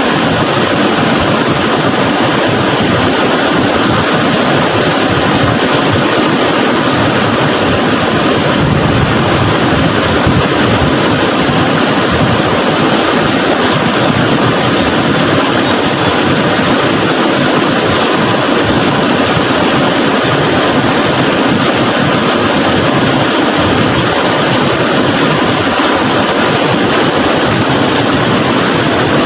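Floodwater rushing steadily down a swollen river, a loud, unbroken roar of water.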